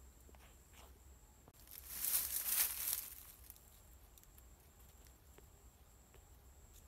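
A brief rustle of dry grass and leaves lasting about a second and a half, swelling and fading a couple of seconds in, over a faint high pulsing about twice a second.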